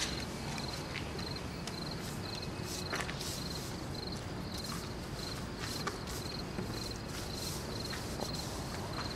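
A cricket chirping steadily in short repeated trills, over a steady low background rumble, with a few brief rustles.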